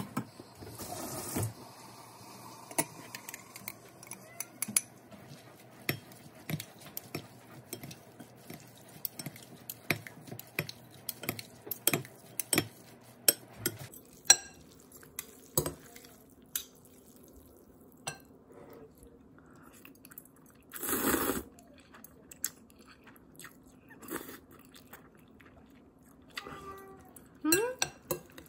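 Metal spoon and chopsticks clicking and scraping against a glass bowl as noodles are tossed in sauce. A short rushing noise comes about two-thirds of the way in, and near the end a dog whines with a rising pitch.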